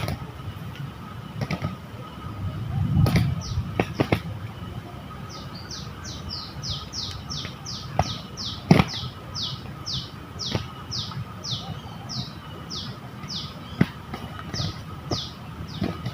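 A small bird calls in a fast series of high notes, each sweeping downward, about three a second, starting about five seconds in and going on steadily. Several sharp knocks break in earlier and in the middle, the loudest about nine seconds in.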